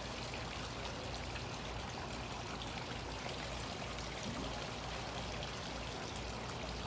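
Steady, even rushing noise with no distinct events, like running water.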